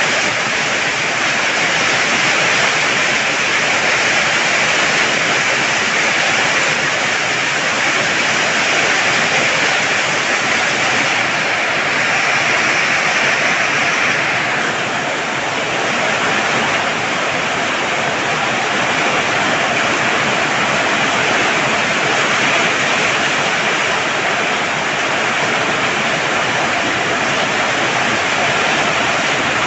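Heavy rain pouring steadily, a dense even hiss that eases slightly about halfway through.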